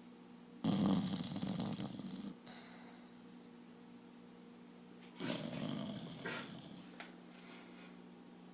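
Dog snoring in its sleep: two long, rough snores about four and a half seconds apart, each starting suddenly.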